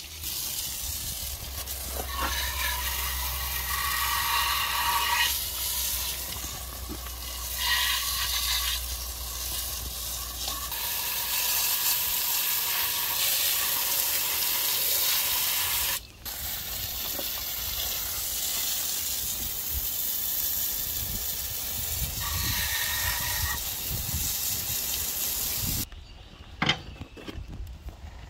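Garden hose spray nozzle hissing as a steady jet of water hits the metal gear housing and plow sweep of a Farmall Cub cultivator, rinsing off ammonium sulfate fertilizer that would otherwise rust it. The spray stops near the end.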